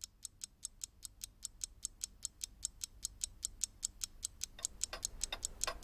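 Mechanical alarm clock ticking quickly and evenly, growing somewhat louder toward the end. Used as a countdown effect before time runs out.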